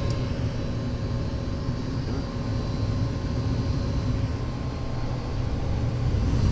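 Furnace running, a steady low mechanical noise with a thin high-pitched squeal held over it. The squeal comes only while the burner fires, and the owner has ruled out the replaced motor as its source.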